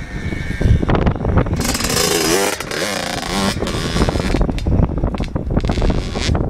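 Yamaha YZ85 two-stroke dirt bike engine revving as the bike rides away. The revs rise and fall in waves in the middle seconds.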